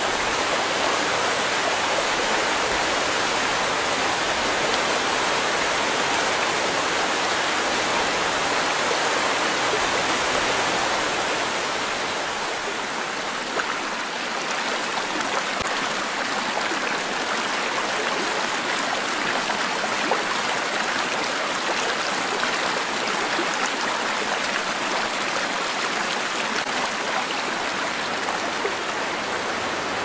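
Water rushing and splashing over rocks in a cascading stream: a steady, even rush, a little lighter in the low end from about twelve seconds in.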